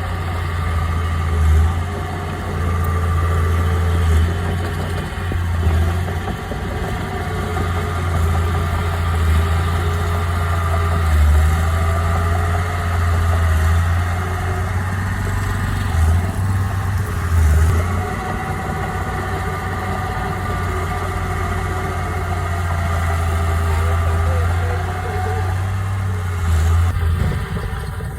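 Bulldozer's heavy diesel engine running steadily, with a deep low hum that swells a little in level every few seconds.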